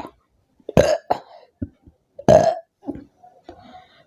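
A woman burping twice, two loud, short burps about a second and a half apart, with a few smaller gulps and burps between them, brought on by drinking a lot of fizzy soda.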